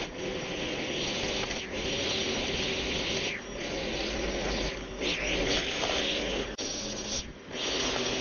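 String trimmer running steadily as its line cuts grass, with a few brief dips in level.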